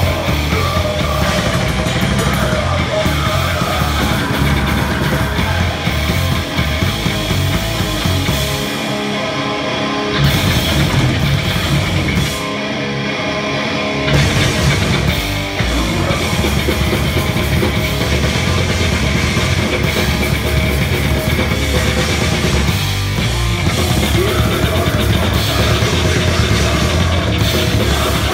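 Live metal band playing loud: distorted electric guitar and a drum kit. The low end drops out twice for a second or two near the middle, then the full band comes back in.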